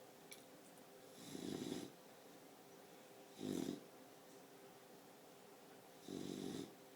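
Four-month-old boxer puppy snoring in its sleep: three snores about two and a half seconds apart, each under a second long.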